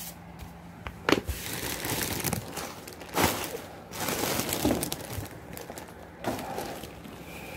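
Large plastic bags of sun-dried red chili peppers crinkling and rustling as they are handled and shifted on and off a dial scale, with a few sharp knocks.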